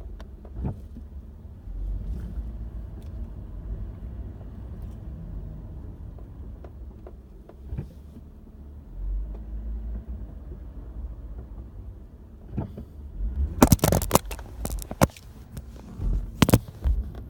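Low, steady rumble of a Lexus IS on the move, then a cluster of sharp knocks and clicks from about thirteen to fifteen seconds in and one more near the end.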